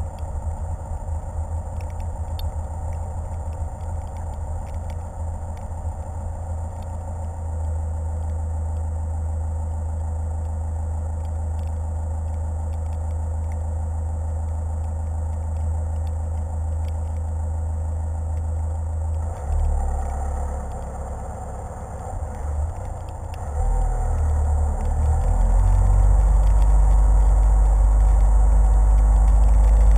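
A car driving, its engine and tyres heard as a steady low rumble through a camera mounted on the hood. The rumble gets noticeably louder near the end.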